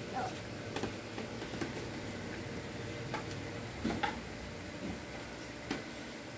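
Small dollhouse toys and furniture handled by a child, giving scattered light clicks and taps, about six in all, over a faint steady hum.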